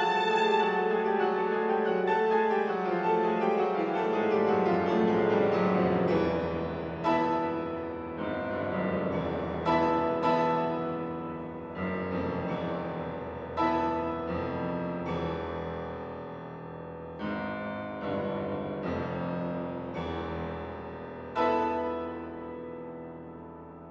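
An alto saxophone's long held note stops under a second in. A Steinway grand piano then plays alone: a series of chords, each struck and left to ring and fade. The last one comes near the end and dies away.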